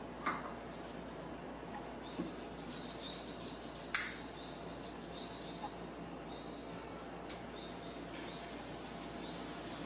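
Birds chirping in a steady string of short, high chirps. About four seconds in, a sharp click as a lighter is struck to light a candle, with a few softer handling clicks around it.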